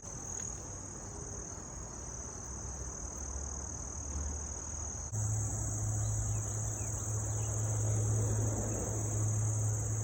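Late-summer insect chorus of crickets: a continuous, steady high-pitched trill. About halfway through it abruptly gets louder, and a steady low hum starts under it.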